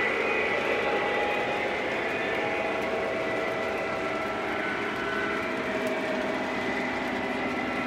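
Lionel O-gauge model trains running on three-rail track, a steady rolling rumble with several held whining tones, fading slightly toward the end.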